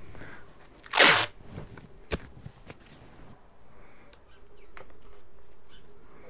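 A strip of tape ripped quickly off the roll once, about a second in, followed by a single sharp click and quieter handling of cardboard.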